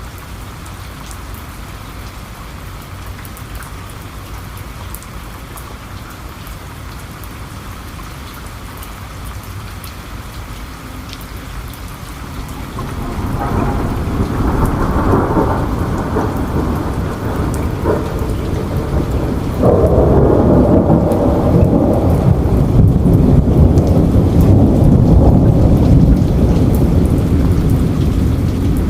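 Steady rain falling, with single drops ticking. Thunder starts to rumble about halfway through and swells louder about two-thirds of the way in, rolling on heavily to the end.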